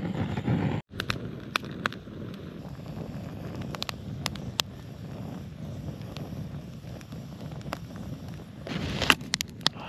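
A handheld butane torch runs with a steady rushing hiss that cuts off about a second in. A small fire of split kindling then crackles with scattered sharp pops, and a quick cluster of louder pops comes near the end.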